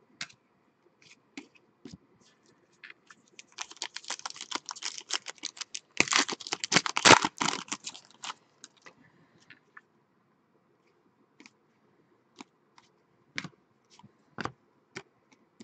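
A pack of 2013-14 Panini Elite basketball trading cards is handled and the cards are flipped through by hand, making crisp clicks and rustles. The clicking comes in a dense, rapid run from about three and a half to eight and a half seconds in, with scattered single clicks before and after.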